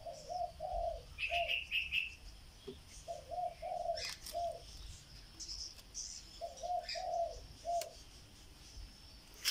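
A dove cooing, three phrases of about four low notes each, repeating about every three seconds. Another small bird chirps briefly about a second in.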